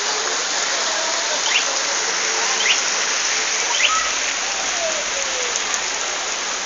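Heavy rain falling, a dense steady hiss, with three short faint chirps about a second apart in the first half.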